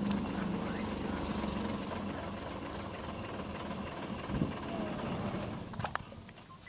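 Vehicle engine idling steadily with a low hum, dying away about six seconds in; a few sharp clicks follow near the end.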